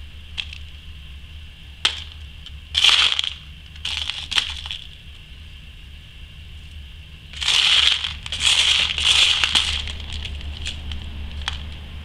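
Loose beads clattering and clicking in a plastic box as fingers sift through them to pick out the next bead. The clatter comes in a few short bursts, the longest in the second half, with single sharp clicks between.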